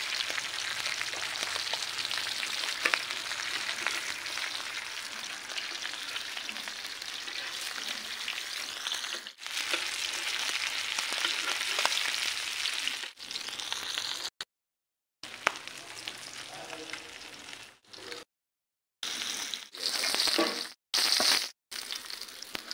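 Masala-coated pomfret fish frying in oil on an iron tawa: a steady sizzle with a few clicks. It cuts off abruptly several times in the second half.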